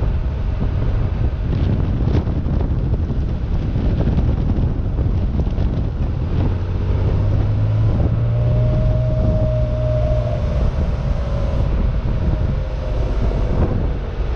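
Air-cooled flat-six of a 1972 Porsche 914-6 with a 2.7-litre twin-plug conversion running steadily while cruising, with wind buffeting the microphone in the open-top cabin. The engine note swells for a few seconds about halfway through.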